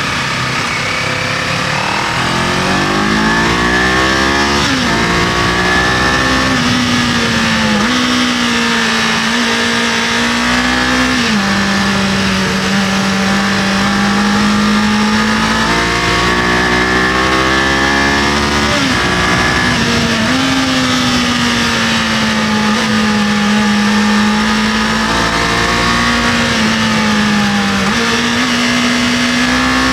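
Kawasaki KLE500's parallel-twin engine pulling the bike along the road. Its pitch climbs over the first few seconds, then drops or jumps suddenly several times with gear changes and throttle, over a steady rush of wind.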